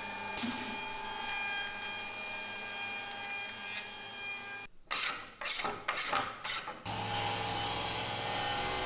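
Holz-Her edgebanding machine running with a steady hum and whine of several fixed pitches while ABS edge banding is fed through it. About five seconds in come a few quick rasping strokes, and then a deeper, steady machine hum takes over.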